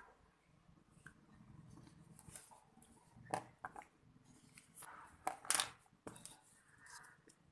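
Irregular handling noises: short rustles, clicks and scrapes, the loudest about three seconds in and again just past five seconds.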